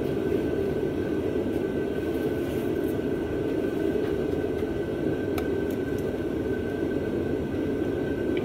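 Propane shop heater running with a steady low noise and a thin, steady high whine over it, with a few light clicks about halfway through.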